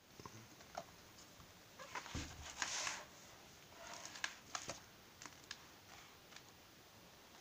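Pages and cover of a large hardcover photo book being opened and turned by hand: a soft paper swish a little before three seconds in, with light taps and rustles of the pages.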